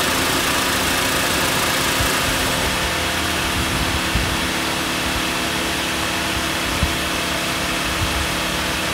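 2004 Mitsubishi Lancer's 4G18 four-cylinder petrol engine idling steadily, warmed up.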